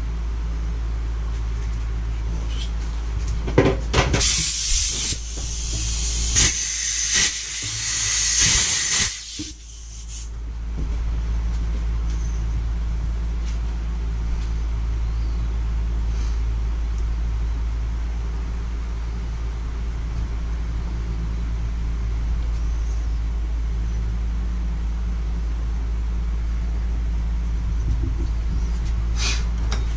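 Loud hissing for about six seconds, starting a few seconds in and broken by short gaps and clicks, over a steady low hum.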